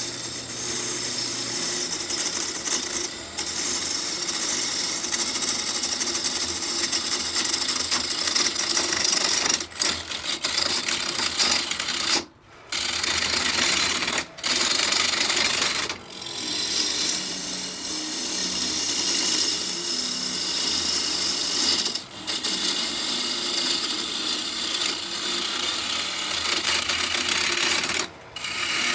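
Bowl gouge cutting into a spinning locust blank on a wood lathe: a steady, rough hissing scrape as shavings come off, broken by a few short breaks where the cut stops.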